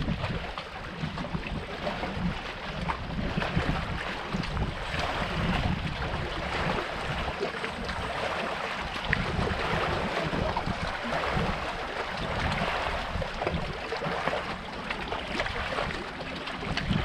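Wind buffeting the microphone over river water lapping against shoreline rocks: a steady rushing noise with an uneven low rumble.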